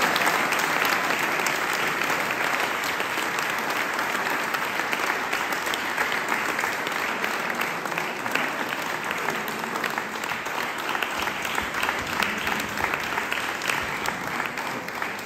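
Room full of people applauding, dense steady hand-clapping that slowly tapers off in loudness.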